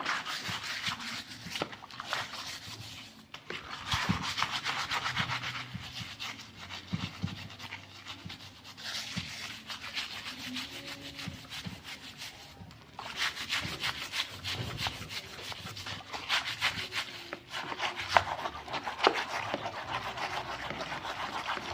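Rough scrubbing or rasping on hard engine parts being cleaned by hand, in irregular runs of quick back-and-forth strokes with short pauses.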